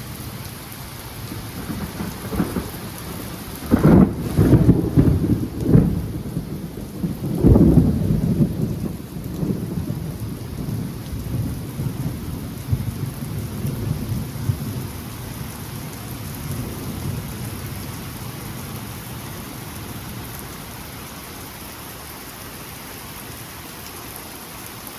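Thunder from a close lightning strike, crackling and cracking about four seconds in, with another burst a few seconds later, then a low rumble that dies away over the next ten seconds or so. Steady rain falls throughout.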